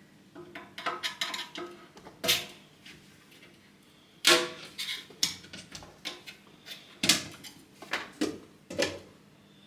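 Painting supplies being handled on a work surface: a string of light knocks, clinks and scrapes, with sharper knocks about two, four, five, seven and nine seconds in.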